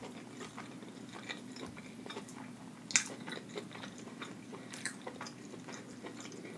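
Close-miked eating sounds: chewing rotisserie chicken, with many small wet clicks as fingers pull apart the sauce-covered meat. A sharper click comes about three seconds in and another near five seconds.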